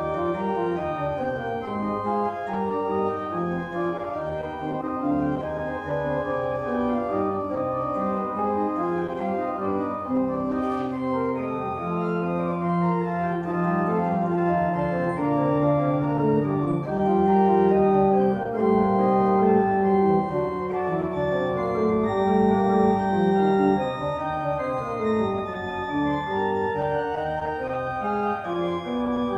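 Organ playing a slow piece of held chords over moving lower notes, swelling louder through the middle stretch.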